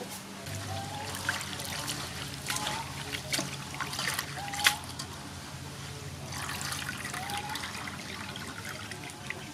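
Hands squeezing and rinsing shredded cabbage and carrot in a metal bowl of water: water trickling and splashing, with irregular wet clicks and one sharper splash a little past the middle.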